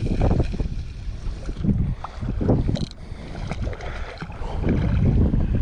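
Wind gusting over the microphone in uneven swells, with small waves lapping at the shoreline.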